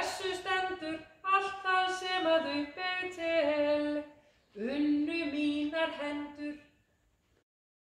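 A woman's voice singing unaccompanied in three short phrases, the last phrase fading out about seven seconds in.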